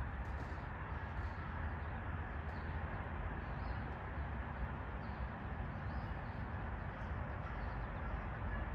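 Steady outdoor background noise with a low rumble, like wind on the microphone, and a few faint chirps now and then.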